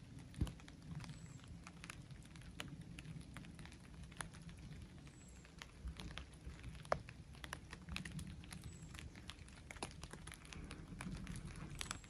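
Rain falling on a hammock tarp: scattered single drops ticking irregularly, a couple of them louder, over a faint steady low rumble.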